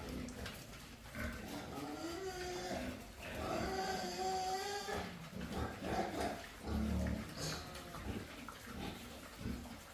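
Drawn-out animal calls with wavering pitch, mostly between about two and five seconds in, followed by shorter low sounds.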